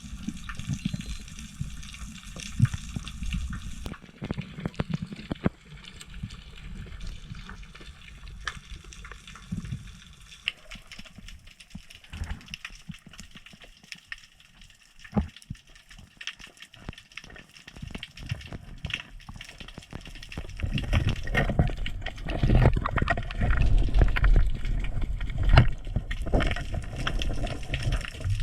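Water moving around an underwater camera, with many scattered sharp clicks and crackles. About two-thirds of the way through it turns into a louder, low churning of water.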